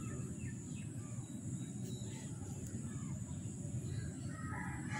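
Outdoor ambience: a steady low rumble with faint, scattered bird chirps, and a louder bird call near the end.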